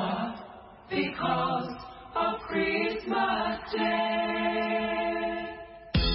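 Short sung radio jingle between news segments: a few a cappella phrases from a group of voices, ending on a long held chord. A brief loud sound comes at the very end, and then the sound cuts off suddenly.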